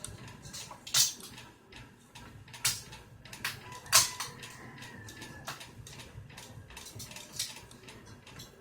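Small metal battery-pack parts clinking and clicking as they are handled and taken apart, with light taps and scrapes throughout. Two louder clinks come about a second in and about four seconds in, the second followed by a short ringing tone.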